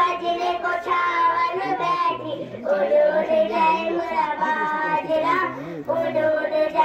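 Schoolgirls singing a song together without accompaniment, in long held phrases with short breaks between them.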